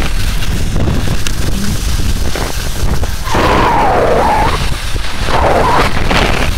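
Wind buffeting the microphone of a camera carried by a moving skier, with the hiss of skis sliding through heavy, slushy spring snow. The hiss swells louder twice in the second half.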